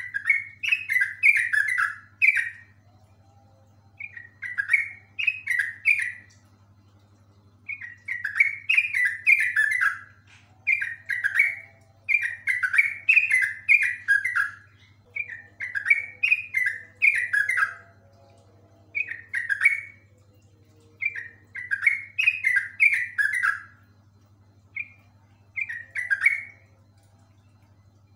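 Yellow-vented bulbul (trucukan) singing: bursts of rapid, bubbly down-slurred notes, each burst one to two seconds long, repeated again and again with short pauses between. A faint steady low hum lies underneath.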